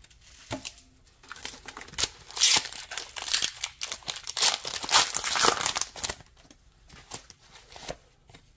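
Foil wrapper of a Pokémon TCG booster pack being torn open and crinkled in the hands, a dense crackling from about two to six seconds in. Near the end it gives way to quieter handling of the cards.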